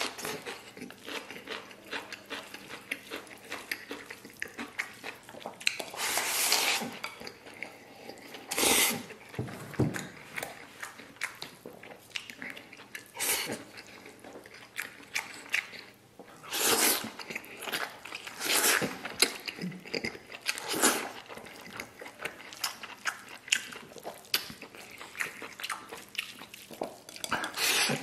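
Close-up eating sounds of a person chewing fried rice and braised pork intestines: wet chewing and mouth noises throughout, with several louder slurping bursts a few seconds apart as food is sucked in from the chopsticks.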